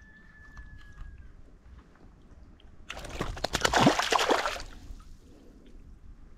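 River water splashing and sloshing for under two seconds, starting about three seconds in, with several sharp splashes and a gurgle.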